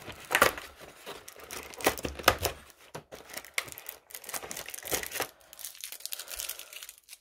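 Cardboard Celebrations advent calendar being handled and one of its doors torn open: irregular tearing, crinkling and rustling.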